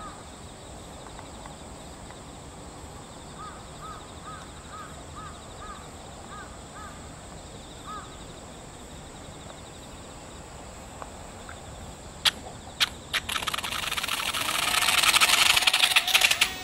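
Small twin-motor foam RC plane touching down on an asphalt path: two sharp knocks, then a loud scraping rush that builds for about three seconds and stops abruptly near the end. Before it, a bird calls repeatedly in short bursts.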